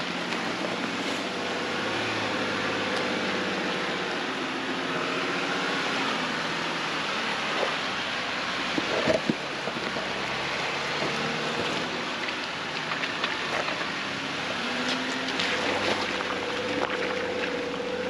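The lifted Honda CR-V's engine working on a rocky climb, its revs rising and falling as it crawls. About halfway through there are a few sharp knocks.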